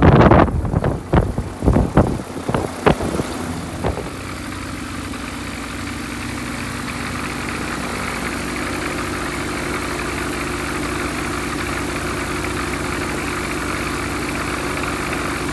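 Viking Honda conversion aircraft engine running steadily with its propeller turning. Gusty prop wash buffets the microphone for the first few seconds. The engine's note steps up slightly about halfway through.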